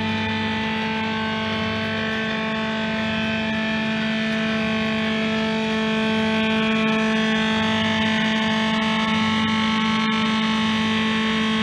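Electronic motorcycle engine sound from a coin-operated kiddie ride's speaker: a steady, distorted buzz held on one pitch, with a faint low pulsing underneath, growing slightly louder about halfway through.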